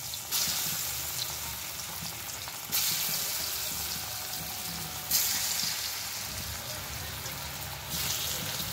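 Pieces of chana dal cake (dhoka) deep-frying in hot oil in a kadai, a steady sizzle that jumps up suddenly four times as each new piece is dropped in, then settles.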